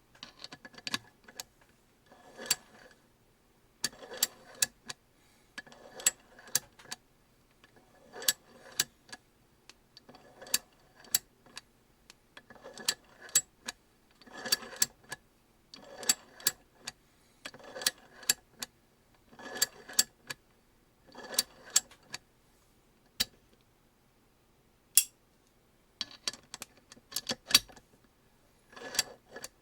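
SUPERTOOL RCW-17 17 mm open ratchet wrench working back and forth, its coarse 60° ratchet head giving short clusters of sharp metallic clicks about every two seconds, with a few single clicks in a brief lull near the end.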